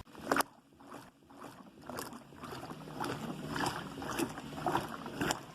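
Washing machine drum churning laundry in water: irregular sloshing and swishing, with one louder splash just after the start.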